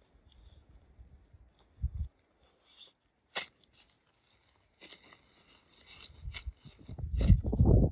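Camping gear being handled: fabric and bag rustling with small clicks and knocks, the loudest a thump about two seconds in and a sharp click a little later. From about six seconds in, loud irregular low rumbling buffets the microphone.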